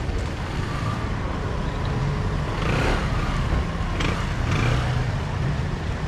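Road traffic: motor vehicle engines running close by with a steady low hum, and vehicles passing.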